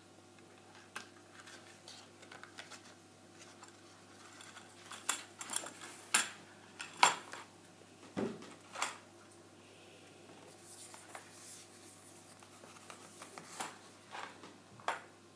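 Hands handling a clear hard-plastic clamshell package with a metal phone bumper inside: irregular sharp clicks and clinks, loudest in a cluster about five to nine seconds in, with softer plastic and paper handling noise between them.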